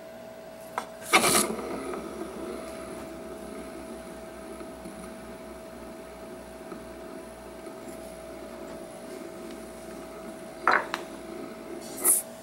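Turned madrone wooden spinning top set going by hand with a sharp knock onto a wooden dish about a second in, then spinning steadily, its point rubbing on the wood with a slow low pulse. Two short wooden knocks come near the end as the top is stopped.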